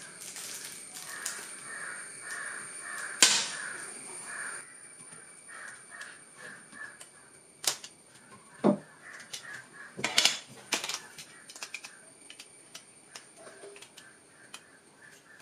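Plastic modular switch parts and plate handled with a screwdriver: scattered clicks and knocks, the loudest a sharp knock about three seconds in. A string of short repeated animal calls runs in the background through the first half.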